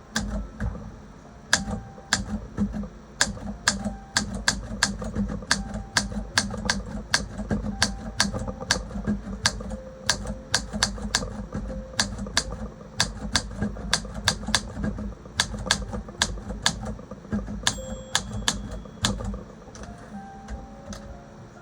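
Olympia SM3 manual typewriter being typed on: a run of sharp typebar strikes at an irregular two to three per second, with a short bell ring about eighteen seconds in, the margin bell near the end of a line.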